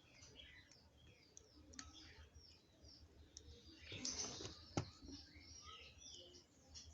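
Faint birds chirping in the background, with a short rustle and one sharp click about five seconds in.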